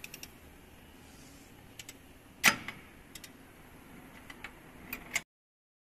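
A few sharp clicks and clinks of metal hand tools being handled, the loudest about two and a half seconds in, over faint workshop background. The sound cuts off suddenly about five seconds in.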